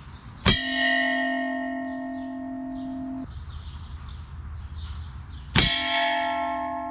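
Two .22-calibre air rifle pellets striking a metal target about five seconds apart. Each hit is a sharp clang that leaves the metal ringing like a bell with several steady tones; the first ring is cut off suddenly about three seconds after the hit.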